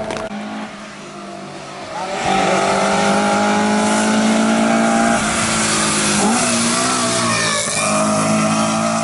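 Hillclimb rally car's engine at high revs as it climbs past. It grows loud about two seconds in, and its pitch drops at gear changes about five and six seconds in. The car's tyres hiss on the wet tarmac.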